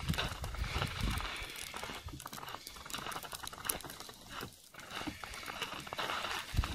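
Footsteps crunching through snow over river ice, with rubbing and handling noise from the camera being carried.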